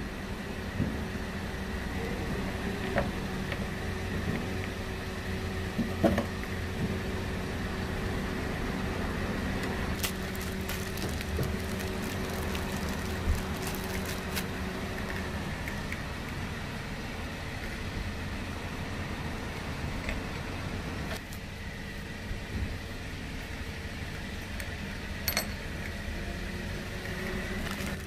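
A steady mechanical hum, as of a small running motor, with a few sharp clicks and taps scattered through it. One tone in the hum stops about halfway, and the hum gets a little quieter near the three-quarter mark.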